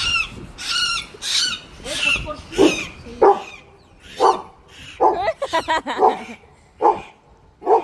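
A dog barking repeatedly, about once a second, from about two and a half seconds in; before that, a run of shrill high-pitched calls.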